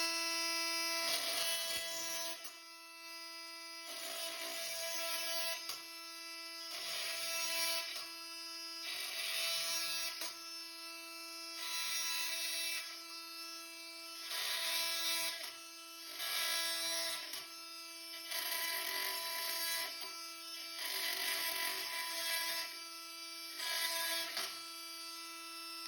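Oscillating multi-tool running at high speed with a Milwaukee carbide metal-cutting blade, sawing through 18-gauge steel brad nails. It gives a steady whine, and a gritty cutting noise swells and fades about every two seconds as the blade bites through the nails.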